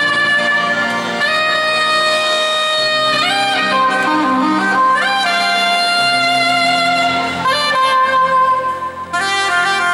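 Harmonium playing the slow instrumental opening of a qawwali song: long held reedy notes that step to a new pitch every second or two, with no drumming.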